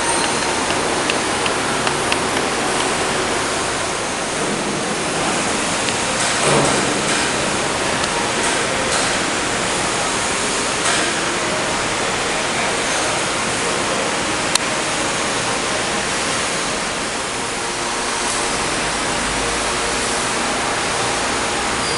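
Mega TR-30NC thread rolling machine running while rolling screw threads: a steady rushing noise with a few faint clicks.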